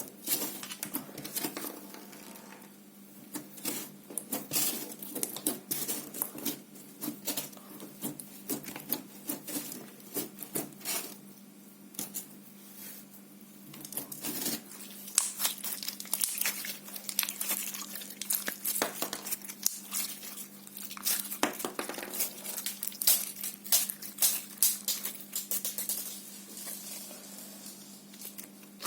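Slime being kneaded and squished by hand, giving rapid sticky clicks and crackles in clusters with short pauses, over a faint steady hum.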